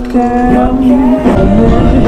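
Music with a voice holding one long note for about a second, then moving on to other notes.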